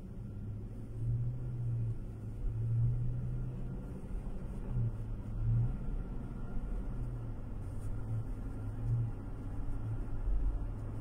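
Car cabin noise while driving: a steady low engine and road rumble that swells and eases every second or so.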